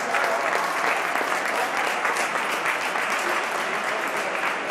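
Audience applauding, a steady patter of clapping.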